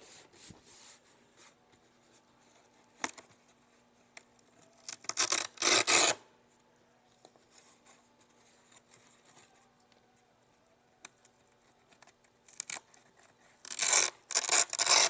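Packaging being handled during an unboxing: rustling and rubbing of box material in two short bursts, about five seconds in and again near the end, with a few light clicks between. A faint steady hum sits underneath.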